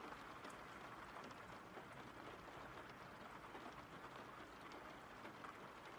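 Faint, steady rain ambience: an even hiss of falling rain.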